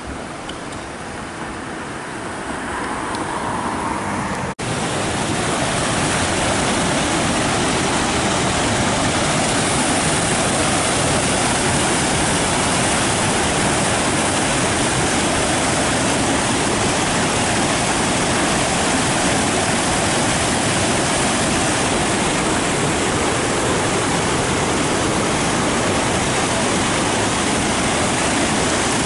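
Floodwater rushing down a swollen creek. After a sudden cut about four and a half seconds in, a louder, steady rush of high water pouring over limestone ledges.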